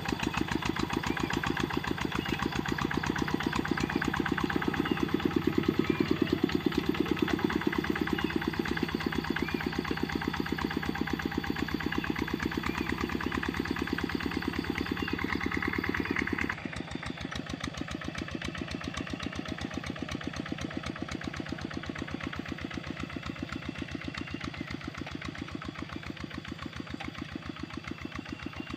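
Kubota RD65 single-cylinder diesel engine of a hand tractor running with a steady, even beat. About halfway through it drops suddenly to a quieter level and keeps running.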